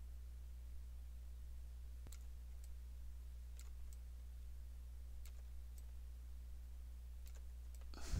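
Faint, scattered clicks of a computer mouse, about ten spread irregularly over several seconds, above a low steady electrical hum.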